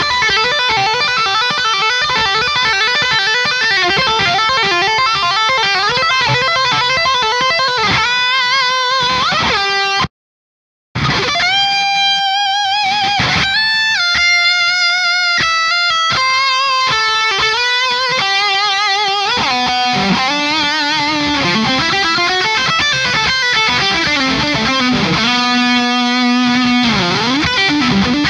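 High-gain electric guitar played through a Cameron CCV tube amp head: fast lead runs and held notes with wide vibrato. About ten seconds in it cuts out for a second, then resumes through a second Cameron CCV, the original version, after the Brad version.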